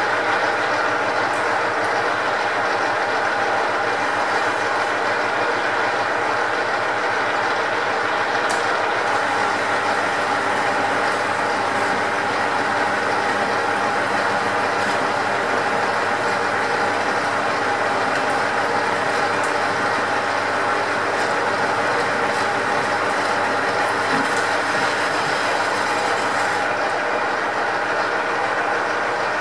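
Metal lathe running steadily, its geared headstock whining, while a cutting tool works in the bore of the spinning metal workpiece.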